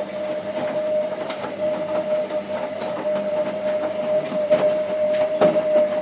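Washing machine running, with a steady motor whine and irregular clacking and rattling from the drum.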